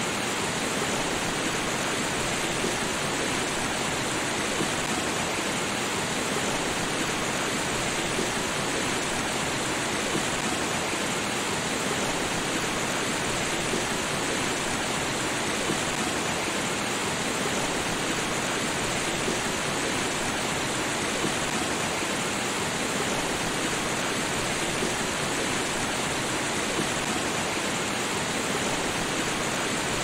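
Waterfall: a steady, unbroken rush of falling water, even throughout with no separate splashes or other events.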